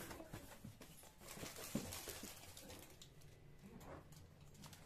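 Hands rummaging in a cardboard box and picking up plastic-wrapped biscuit packs: faint rustling with scattered small taps and knocks, busiest in the first couple of seconds.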